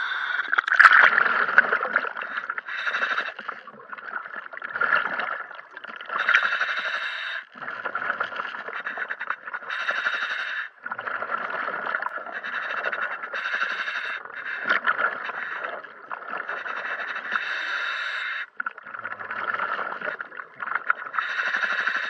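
A diver breathing through a scuba regulator underwater: each inhale and rush of exhaled bubbles comes round about every three to four seconds.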